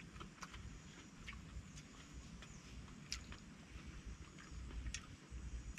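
Faint eating sounds: a person chewing, with sharp little clicks and crunches at irregular intervals over a low rumble.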